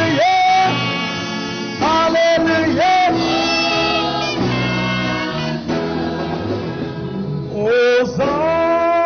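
Gospel worship song: a singing voice holds long, sliding notes over a steady instrumental accompaniment.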